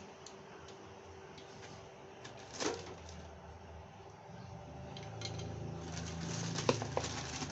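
Faint scattered clicks and clinks of TIG welder accessories (cables and clamps) being handled, with a low steady hum growing in the second half.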